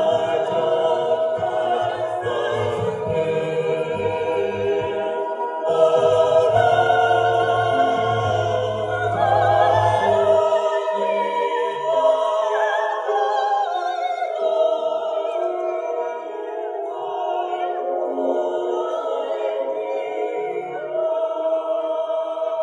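Mixed choir singing a Christmas song medley in several parts. The deepest voices drop out about halfway through, leaving the higher voices singing.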